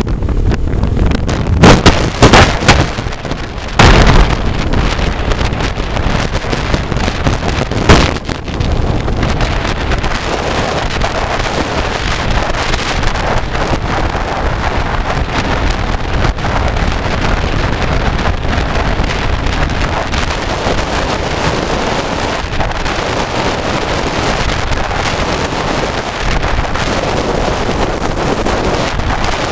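Wind buffeting the microphone over the steady road and engine noise of a vehicle travelling at speed. Several hard gusts in the first eight seconds, then an even rush.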